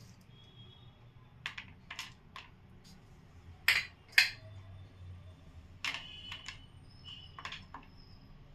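Scattered light clicks and taps of kitchenware being handled while an airtight container is filled, about a dozen over the stretch, the loudest pair about four seconds in, some with a faint brief ring.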